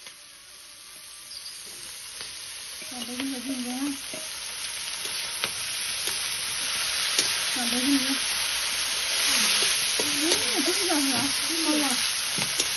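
Chopped food hitting hot oil in a wok and frying, the sizzle growing louder over the first nine seconds or so as it is stirred, with scattered taps and scrapes of a metal spatula against the pan.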